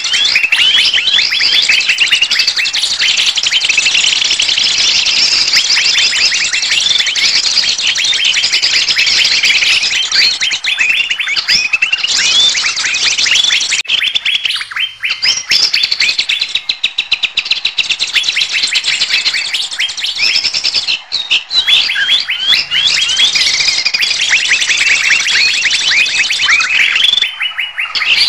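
Bird-lure recording of a noisy flock of small songbirds calling all at once: a dense, continuous chatter of short high chirps and quick twitters, with a brief break near the end.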